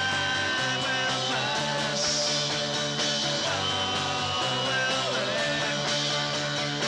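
Punk rock song playing from a home-recorded 1996 demo cassette: a three-piece band of electric guitar, bass and drums.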